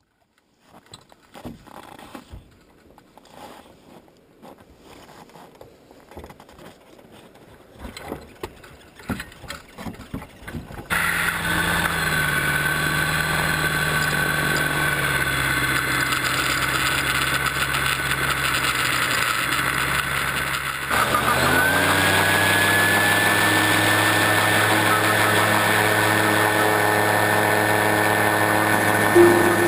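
Faint scattered clicks and rustling, then from about eleven seconds in the engine of a Magni M24 Orion gyroplane running steadily. About ten seconds later it speeds up with a rising whine and carries on louder and higher.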